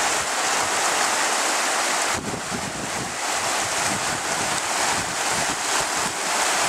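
Steady rush of churning water, with gusts of wind buffeting the microphone in an uneven low rumble.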